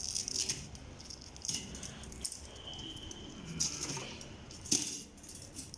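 Microwave oven accessories being handled out of their packaging: rustling with scattered light clicks and clinks.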